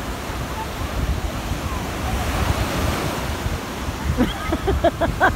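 Small surf breaking and washing through the shallows, with wind buffeting the microphone as a low rumble. Several short voices call out near the end.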